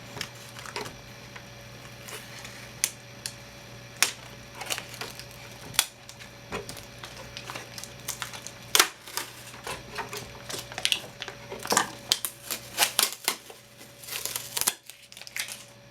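Hands handling the plastic body and packaging of an M3D Micro 3D printer: irregular clicks, taps and crackles, coming thicker in the second half, over a faint steady hum.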